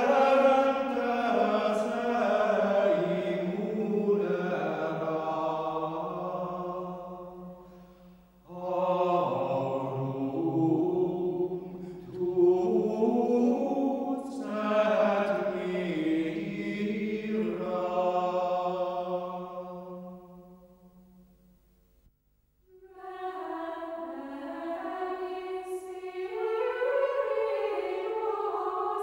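Unaccompanied sacred choral chant: low men's voices sing long, slow phrases that die away about three quarters of the way through, then higher voices enter singing in several parts.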